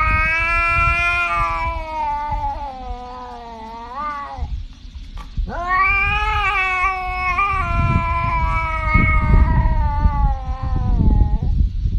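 A domestic cat yowling in long, drawn-out calls: one of about four seconds, then after a short break a second of about six seconds, bending in pitch, with another starting near the end. A low rumbling noise runs underneath.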